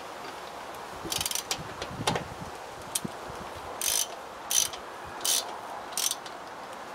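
Socket ratchet wrench clicking as a fastener is turned in the engine bay: a quick run of clicks, then four short ratcheting strokes about two-thirds of a second apart.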